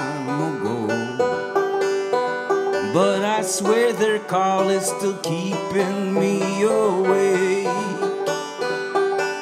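Banjo being picked in a steady accompaniment, with a man's wordless singing held in long wavering notes over it from a few seconds in.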